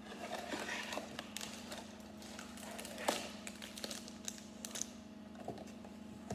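Sealed plastic bags of Lego pieces rustling and tapping on a wooden table as they are taken out of the cardboard box, with the box being handled. There is an irregular string of small clicks and taps, the sharpest about three seconds in, over a steady low hum.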